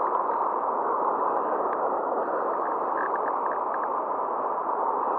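Steady rush of fast-flowing river water in the current, with a few faint ticks about halfway through.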